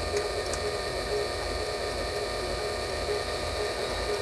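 Small lathe's electric motor running steadily with a hum and a faint regular pulse about twice a second, with a couple of faint ticks early on as the graver turns a mild-steel screw blank.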